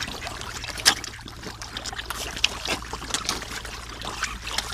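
A mass of carp thrashing and gaping at the water surface: dense, irregular splashing and wet slaps, the sharpest splash about a second in.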